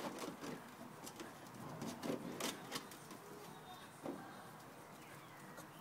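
A few scattered knocks and scrapes of an empty plastic bottle being pushed and mouthed about on concrete by a puppy.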